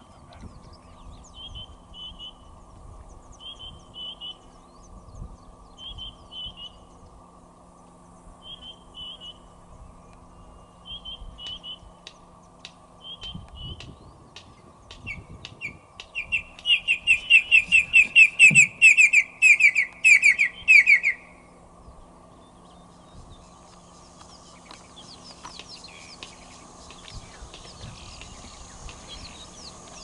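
Red-crested korhaan calling: short double notes about every second and a half, then a loud, fast run of about a dozen whistles lasting some five seconds, beginning about sixteen seconds in.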